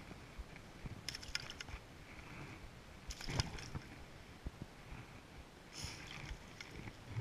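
Brown trout thrashing in a landing net at the water's surface, with three short bursts of splashing: about a second in, just past three seconds, and near six seconds. A steady rush of river water runs underneath.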